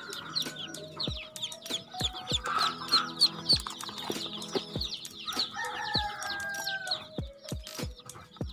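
A flock of White Pekin ducklings peeping continuously, many short high chirps overlapping, over background music with sustained notes and a regular low beat.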